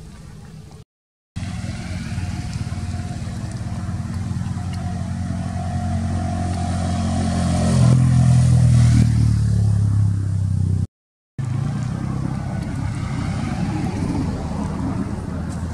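A motor vehicle's engine running with a steady low hum, growing louder to a peak about halfway through and then easing off, as if passing by. The sound cuts out completely twice for about half a second.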